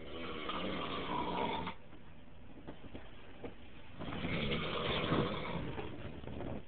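A sleeping man snoring loudly: two snores, each about two seconds long and a few seconds apart, the second a little louder.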